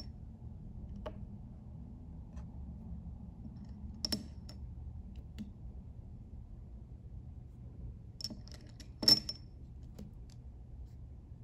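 Scattered clicks and clinks of flat glass gems: they knock against each other and the glass cup as they are picked out one at a time, and tap as each is set down on a card on a plastic tray. The loudest, ringing clink comes about nine seconds in. A steady low room hum runs underneath.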